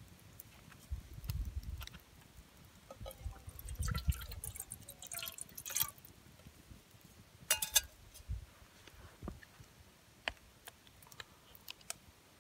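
Liquid poured from a metal bottle into a pot, trickling and dripping, with soft handling noises and a sharp clink about seven and a half seconds in.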